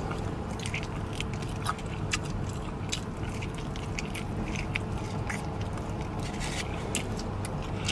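Close-up mouth sounds of a man biting and gnawing meat off a barbecued rib: wet smacks, small clicks and chewing, repeated through the whole stretch. A steady low hum sits underneath.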